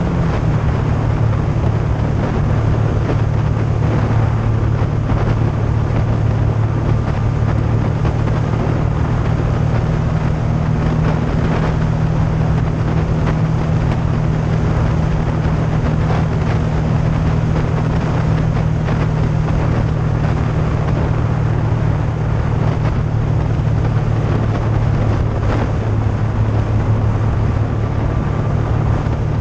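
Yamaha FZ-09's inline three-cylinder engine running at a steady cruise, with wind noise over it.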